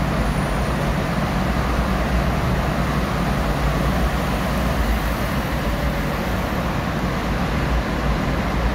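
Steady road noise heard inside a moving car: tyre roar and a low engine hum, driving through a road tunnel with other traffic.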